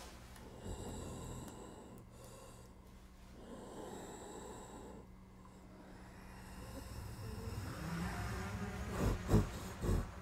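A person breathing heavily and raggedly in long, rough breaths, with a few loud, sharp breaths near the end. A faint steady hum runs underneath.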